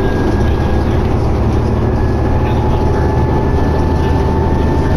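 A 2011 New Flyer D60LFR articulated diesel bus under way, heard from inside the cabin: a steady engine and road drone with a thin whine that rises slightly in pitch as it gathers speed.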